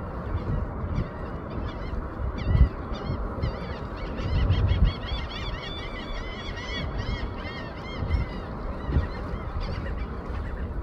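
Osprey calling in flight: a long run of short, high, whistled chirps repeated several times a second, densest midway and tailing off near the end. A few low thumps and rumble sit underneath.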